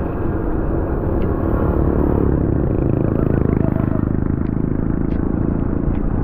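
Motorcycle engine running while riding, mixed with a steady rumble of wind and road noise on the microphone.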